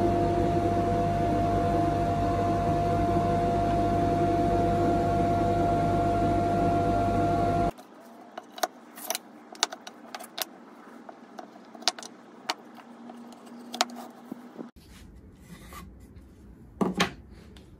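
Bandsaw running steadily with a constant whine and hum, cutting off suddenly about eight seconds in. Then light clicks and taps of cut wooden box pieces being handled and set on a workbench, with a louder knock near the end.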